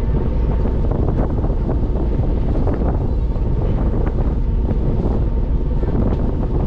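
Wind buffeting the microphone on a moving ferry, over the steady running of the ship's engine and the rush of water past the hull.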